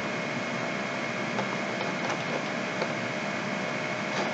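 Steady background hiss with a faint steady hum, the room and microphone noise of a desk recording, with a few faint clicks.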